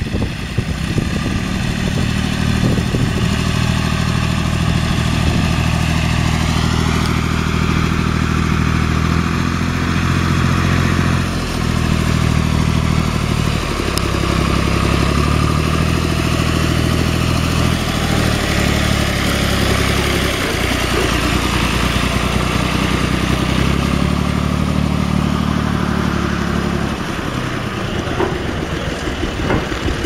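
John Deere 1020's 2.5-litre three-cylinder diesel engine running steadily, its note rising about six seconds in and shifting several more times.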